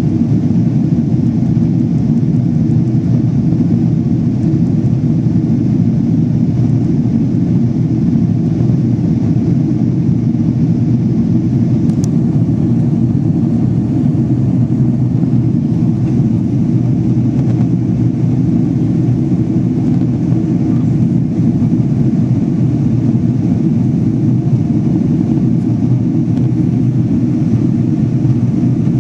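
Jet airliner cabin noise while climbing out after takeoff: a steady, even rumble of engines and rushing air, heavy in the low end. A single faint click about twelve seconds in.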